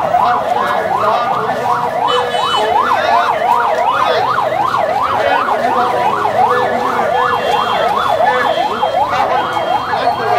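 Electronic siren sounding in a fast up-and-down sweep, about three cycles a second, over the noise of a street crowd.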